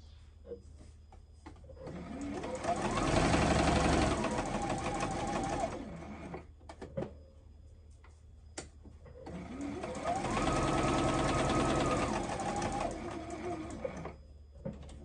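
JUKI electric sewing machine stitching along a folded hem in two runs, each speeding up to a steady whir and then slowing to a stop. A few light clicks come in the pause between the runs.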